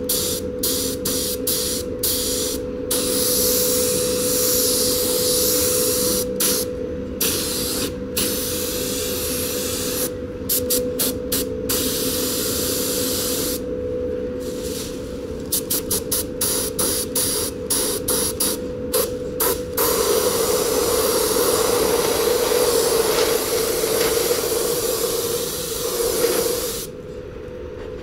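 Mini gravity-feed spray gun spraying primer: a spray hiss that stops and starts in many short bursts, then runs as one longer unbroken pass of about seven seconds near the end before cutting off. A steady hum runs underneath.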